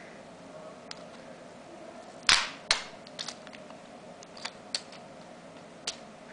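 Handling of an iPod nano and its clear plastic packaging: small clicks and taps, with one louder, brief plastic crackle about two seconds in.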